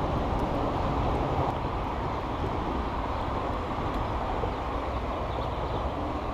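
Steady rumble of traffic on the highway overpass overhead, a continuous low noise without distinct passes or impacts.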